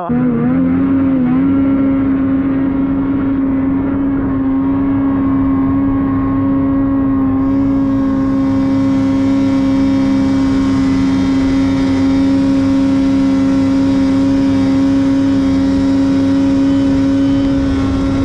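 Snowmobile engine running at steady high revs while the sled is under way. Its pitch holds nearly constant after a brief wobble at the start.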